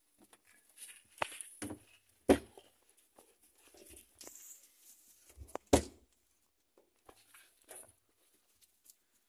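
Scuffling on straw bedding in a rabbit hutch, broken by four sharp knocks, the loudest about two seconds in and again near six seconds, with a brief rustle in between.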